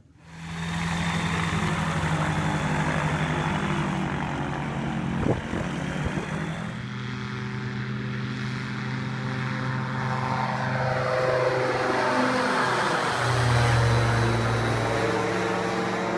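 Weight-shift microlight trike's engine and pusher propeller running loud at full power for the takeoff run and climb-out, starting about half a second in. There is a brief knock about five seconds in. In the second half the engine note drops in pitch as the trike flies past.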